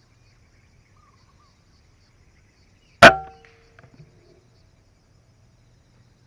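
A single air rifle shot about three seconds in: a sharp crack with a short ringing tail, followed by a few faint clicks.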